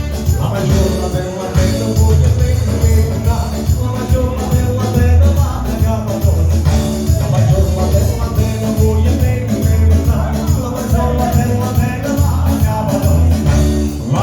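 Live dance-hall band music with a steady, pulsing bass beat and a melody line over it.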